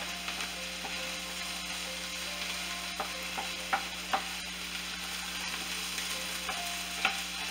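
Chopped onion, celery and green bell pepper sizzling as they sauté in a skillet, stirred with a wooden slotted spoon. The spoon knocks against the pan a few sharp times, mostly about three to four seconds in and once near the end.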